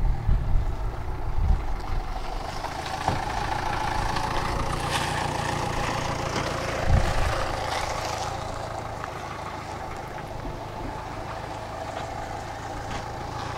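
Tram running slowly, heard from on board: a steady electric motor hum with rolling rumble from wheels on track, growing gradually quieter, and a short low bump about seven seconds in.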